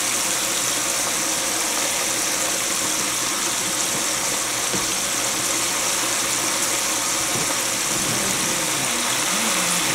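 Battered chicken pieces frying in hot oil in an open aluminium pressure cooker: a steady, vigorous sizzle and bubbling in the first half-minute after the chicken went into the oil.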